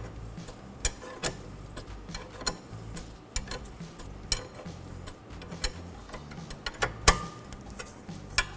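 Hand ratchet clicking in irregular strokes while running down a 15 mm brake caliper bracket mounting bolt, with one sharper click near the end.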